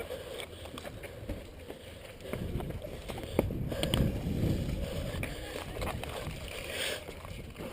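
Irregular rustling and footfalls of someone moving on foot.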